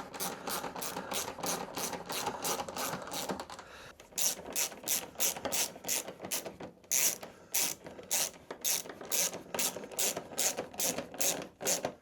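Hand ratchet clicking in quick, regular back-and-forth strokes, about two or three a second, as a fastener is run in. The strokes are fainter for the first few seconds, then louder and sharper.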